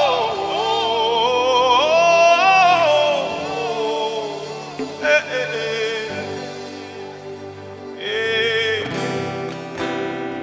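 Live gospel worship music: one slow, held melody line with vibrato over quieter accompaniment. It swells at the start, fades after a few seconds, and a new phrase comes in near the end.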